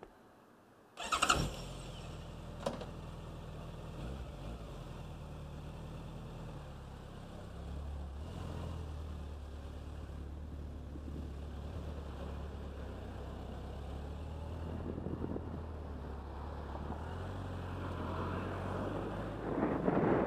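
Motorcycle engine starting about a second in, then idling steadily. Near the end it grows louder as the bike pulls away, with wind rushing on the microphone.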